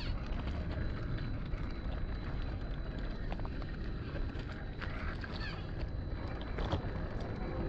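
Wind rumbling on the microphone, with scattered clicks and crunches of loose rock under the tyres of a 1/10-scale Gmade GS02F RC crawler truck as it climbs over stones.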